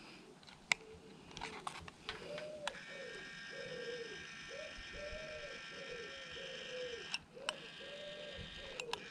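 Skywatcher auto focuser's small electric motor running, turning the telescope's focuser: a whine whose pitch rises and falls about twice a second, starting about two seconds in. A few sharp clicks, the loudest about a second in.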